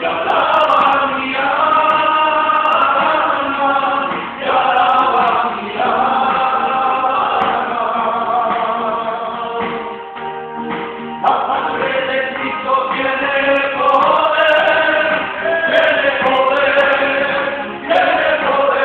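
A small group of men singing a hymn together into microphones, with long sustained notes and a brief lull about ten seconds in.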